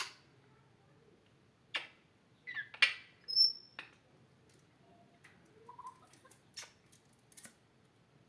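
African grey parrot making a series of sharp clicks and short calls, with one short high whistle a little past three seconds in.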